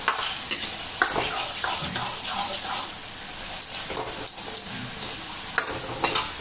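A spoon stirring and scraping thick saag around an iron kadhai, in irregular strokes and clicks, over a steady sizzle of frying.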